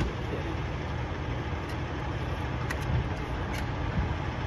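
Steady low rumble of idling diesel semi-truck engines, with a few faint clicks from the door handle and latch being tried.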